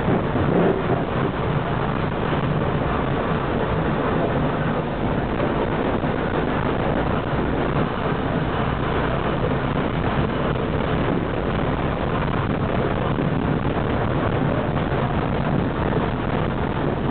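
Steady running noise of a tram in motion, heard from inside the car at its rear: wheels on the rails and the car's running gear, with no pauses.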